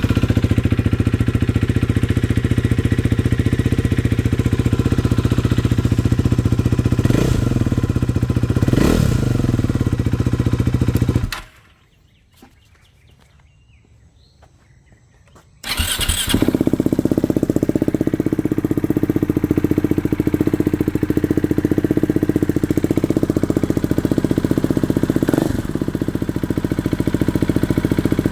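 Two Husqvarna Svartpilen single-cylinder 'thumper' motorcycles with LeoVince slip-on exhausts, heard one after the other. The first idles, is blipped twice, then is shut off about eleven seconds in. After a few seconds' pause the second starts up, idles, and is revved once near the end.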